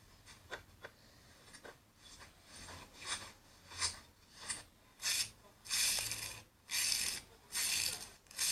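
Rhythmic scratchy rasping strokes, as of a textured material being scraped or crushed in a satisfying-video clip: a few faint clicks first, then strokes about one and a half a second that grow much louder about halfway through.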